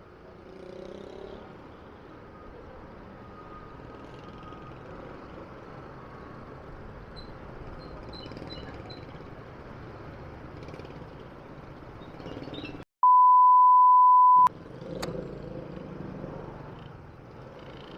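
Steady road and traffic noise heard while riding a scooter. About two-thirds of the way through, a loud, steady, single-pitch censor bleep lasts about a second and a half, with the rest of the sound cut out around it.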